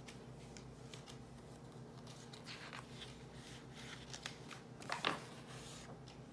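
Pages of a paperback picture book being handled and turned: soft paper rustles and a few light clicks, with a louder rustle of the page flipping about five seconds in. A faint steady hum sits underneath.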